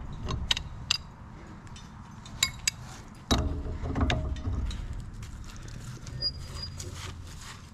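Hand tools clicking and clinking on the steel of an old tractor disc in irregular strikes, with one louder knock and brief metallic ring about three seconds in.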